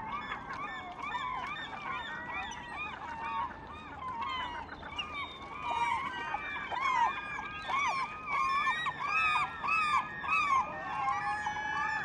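A flock of birds calling, with many short honking calls overlapping, growing busier and louder about halfway through.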